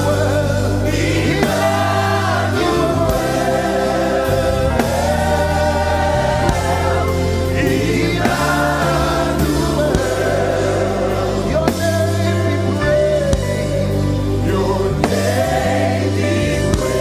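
Gospel worship music: voices singing long held lines, with a choir, over a band with sustained bass notes.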